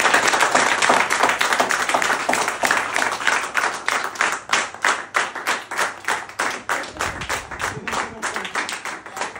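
A small group clapping hands in applause, close and dense at first, then thinning to fewer, more separate claps that fade near the end.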